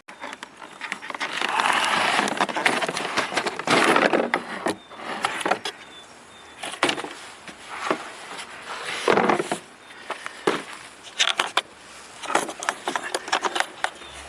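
A boxed power tool being unpacked: rustling, scraping and tearing of the packaging, broken by irregular clicks and knocks as the box is opened and the contents handled.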